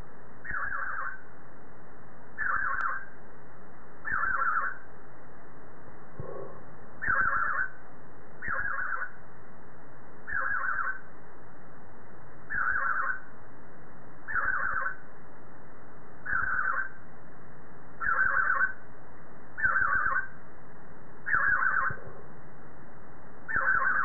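Budgerigar calling: a short rasping call repeated about every one and a half to two seconds, about a dozen times, at a steady rhythm.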